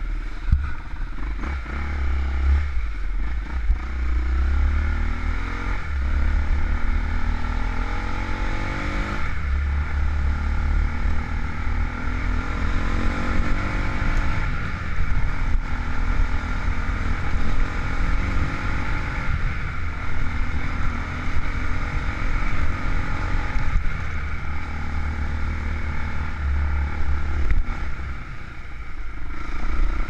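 Off-road motorcycle engine running under load along a dirt lane, its pitch climbing as the rider accelerates, most clearly about a third of the way in and again a few seconds later. A heavy low rumble of wind buffets the bike-mounted microphone throughout.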